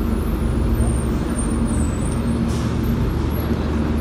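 Single-decker Dennis Dart bus's diesel engine running as the bus pulls slowly round a corner, a steady low drone, with a short hiss about two and a half seconds in.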